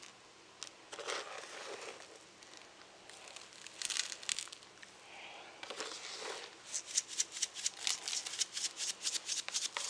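Sprinkles rattling inside a small shaker bottle as it is shaken: a few scattered rattles at first, then rapid shaking at about four or five shakes a second over the last three seconds.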